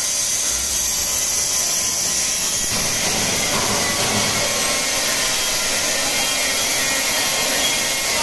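Rotary rinsing, filling and capping machine for 5- and 10-litre bottles running: a steady mechanical noise with a strong hiss, which grows fuller about three seconds in.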